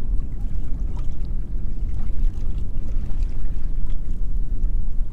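Wind rumbling on the microphone over water lapping and splashing against a small boat's hull: a steady, loud low rumble with no tone in it, its loudness flickering.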